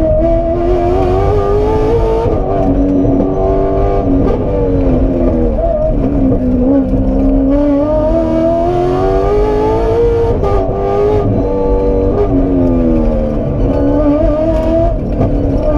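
Aston Martin Vantage rally car's engine heard from inside the cabin, its revs rising and falling over and over as it accelerates between corners and drops back for them. The longest climb in revs comes about halfway through.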